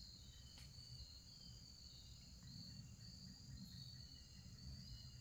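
Near silence in the woods: a faint, steady, high-pitched insect trill, likely crickets, over a low rumble.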